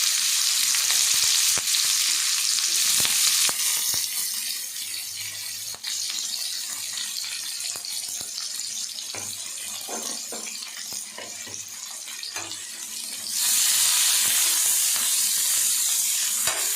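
Sliced onions and green chillies sizzling in hot oil in a kadai, stirred with a spatula that taps and scrapes the pan. The sizzle eases about four seconds in and grows louder again near the end.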